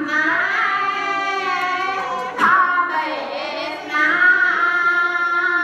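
A voice chanting in long, held sung notes that bend slowly in pitch. There is a short break about two and a half seconds in, and it comes back louder near the end.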